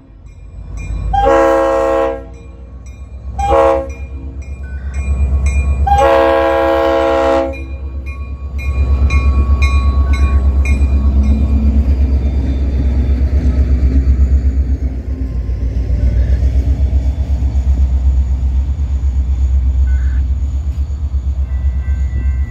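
A diesel locomotive's multi-chime air horn sounds long, short, long for the grade crossing. The EMD locomotive then passes close by with a loud, steady low rumble that pulses rapidly as the wheels roll over the crossing.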